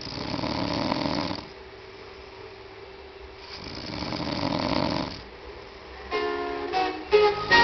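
A sleeping pet snoring: two long, loud snores about three seconds apart. About six seconds in, plucked-string music like a ukulele starts.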